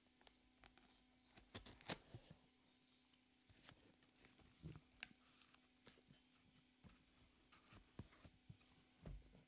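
Faint handling of a cardboard box and its packed contents: scattered soft taps, scrapes and rustles, the sharpest a couple of seconds in, over a faint steady hum.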